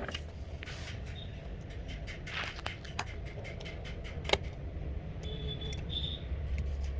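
Light clicks and scrapes of small repair tools working the ringer (loudspeaker) assembly loose from an opened iPhone 7 Plus, over a low steady hum, with two brief high squeaks near the end.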